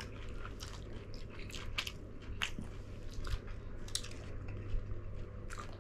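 Close-miked chewing and biting of people eating a meal, with irregular sharp mouth clicks.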